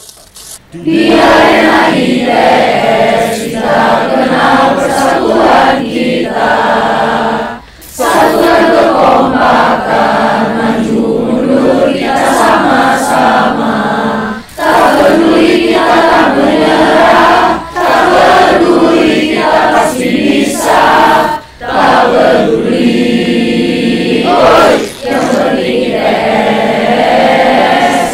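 A group of young voices, mostly women's, singing an Indonesian campus cheer song (yel-yel) together, in phrases of a few seconds with short breaks between them.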